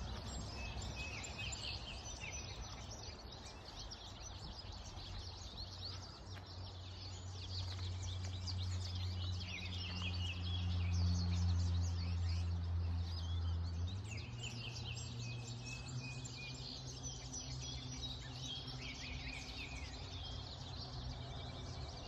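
A flock of small finches, which the observer takes for yellow finches (American goldfinches), chirping and twittering constantly in the trees. Under them runs a steady low hum that swells in the middle and steps up in pitch about two-thirds of the way through.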